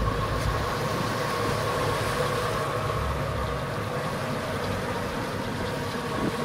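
Boat engines running steadily at sea, a low rumble with a steady whine over it, mixed with wind and water noise.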